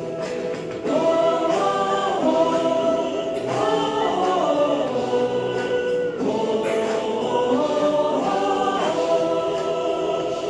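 Music: a choir singing long held phrases, one after another.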